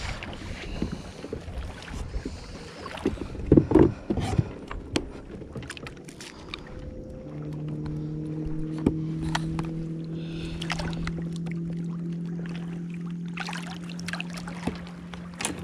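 Knocks and clatter of handling on a small fishing boat, with a louder cluster of knocks about four seconds in. About halfway through, a steady low motor hum starts and keeps going.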